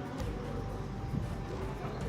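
Quiet background music with a few held tones.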